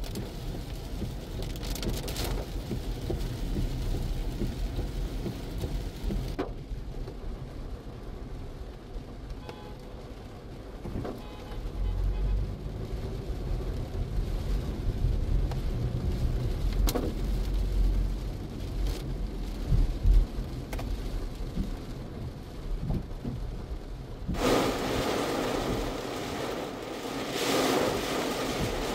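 Rain falling on a car's windshield and roof, heard from inside the car, over the low rumble of the car driving on a wet road. The rain hiss turns suddenly louder and brighter near the end.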